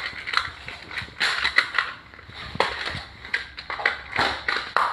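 Plastic magnetic building tiles clicking and clattering as they are handled, with many irregular clicks.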